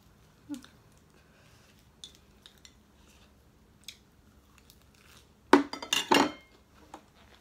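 Dishes and utensils clinking on a table: a few faint clicks, then a louder cluster of clinks about five and a half seconds in.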